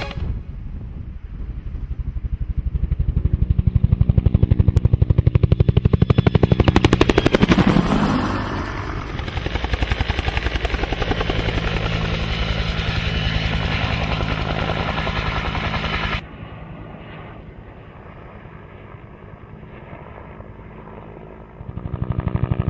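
Electronic helicopter rotor sound effect from a toy military helicopter's speaker: a fast, even chopping. It is loudest a few seconds in, drops much quieter and duller about three quarters of the way through, then swells again near the end.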